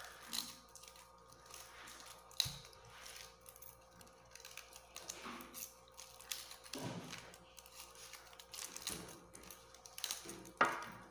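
Small dry lower leaves being torn off a pineapple crown by hand: irregular crackling and rustling tears, with a sharp snap about two and a half seconds in and a louder one near the end.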